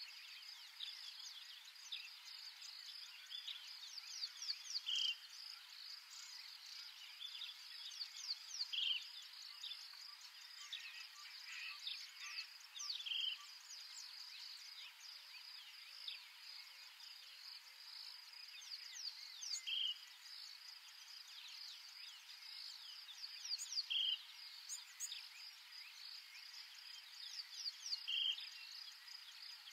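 Faint evening chorus of insects and calling animals: a steady high buzz with many thin chirps, and a short call repeating about every four seconds.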